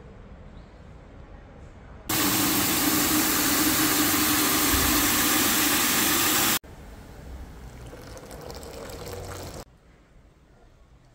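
Pressure washer running and spraying water onto the car: a loud, steady hiss over a motor hum that cuts off abruptly after about four and a half seconds, then comes back quieter for about three seconds.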